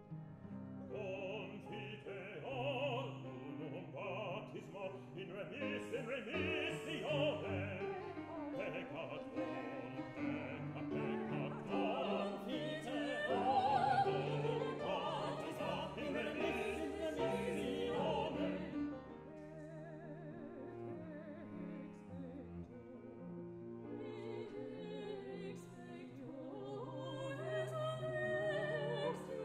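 Mixed choir singing a classical Mass setting with instrumental accompaniment. The music drops to a softer passage about two-thirds of the way through and builds again near the end.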